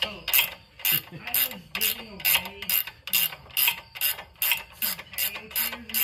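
Ratchet wrench being swung back and forth on a sway bar link nut, a burst of pawl clicks on each return stroke, about two strokes a second.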